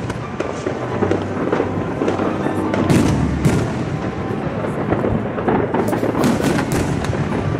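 Aerial fireworks shells bursting in quick succession, a series of bangs and crackles, with music playing underneath.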